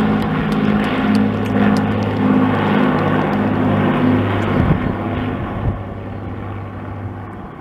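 Two Avro Lancaster bombers flying in formation, the steady drone of their Rolls-Royce Merlin V12 engines fading gradually as they fly away.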